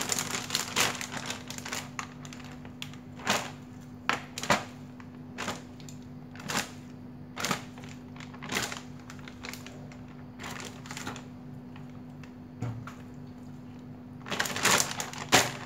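Pieces of raw duck head dropped one at a time into a clear zip-lock plastic bag, each landing with a sharp click and rustle of plastic, roughly once a second. Near the end the bag itself is handled, crinkling more busily. A steady low hum runs underneath.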